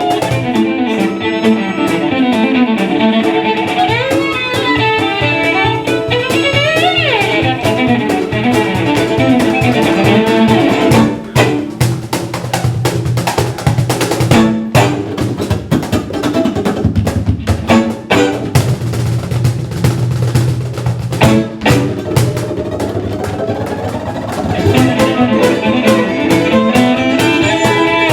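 Live band playing a folk-style instrumental, fiddle over guitar with drums; the fiddle slides up through notes early on. Midway the melody thins out and drums carry the music, with a few short breaks, before the full band comes back near the end.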